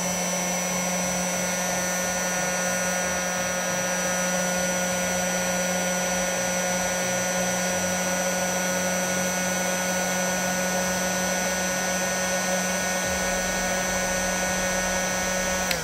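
Hot-air heat gun running steadily, its fan blowing a rush of air with a low hum and a high whine, as it preheats the back of a circuit board for chip removal. It cuts off suddenly at the end.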